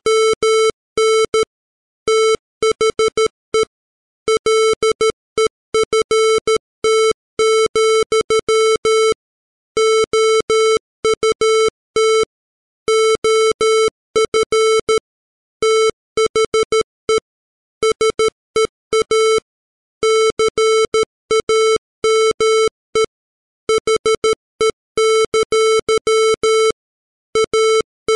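Computer-generated Morse code at 13 words per minute: a 440 Hz square-wave tone keyed on and off in dots and dashes, with longer pauses between words, spelling out the lines of a poem.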